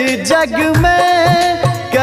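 Instrumental interlude of a Maithili devotional song: a wavering melody line over a drum beat.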